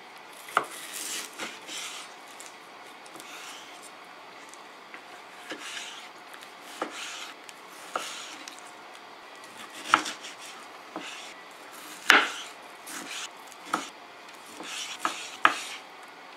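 Chef's knife cutting raw chicken breast on a white cutting board: irregular knocks as the blade strikes the board, the loudest about ten and twelve seconds in, with soft rubbing and slicing sounds in between.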